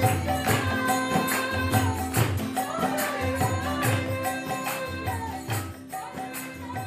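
Kirtan devotional music with a steady drone, regular drumbeats and jingling percussion, fading out over the last couple of seconds.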